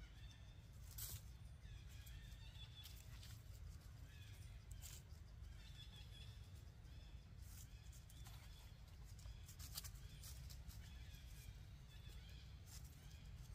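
Faint, short high squeaks from baby macaques, repeated many times, over a low rumble and scattered rustles.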